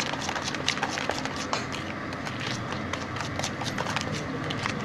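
A utensil stirring cake batter by hand in a bowl, clicking and knocking against the bowl in irregular strokes, about three a second, over a steady background hiss.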